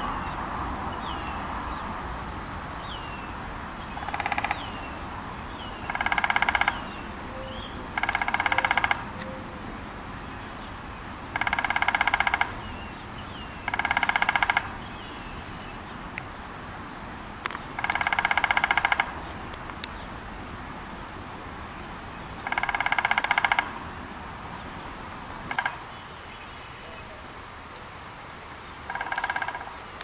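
Male downy woodpecker drumming on a wooden utility pole: about nine short, rapid rolls, each under a second, a few seconds apart. Faint chirps from small birds come between the rolls.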